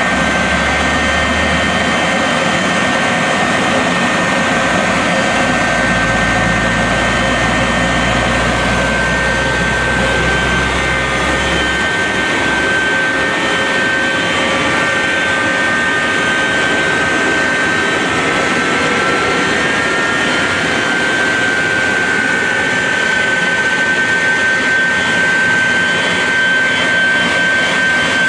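Shockwave jet truck's three Pratt & Whitney J34 jet engines running while the truck stands still: a loud, steady rush with a high whine. Around the middle a second whine rises in pitch and settles alongside the first.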